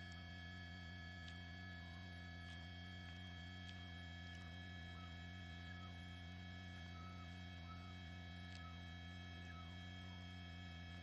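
Faint steady electrical hum with several steady higher tones on an open intercom audio line, with a few faint ticks.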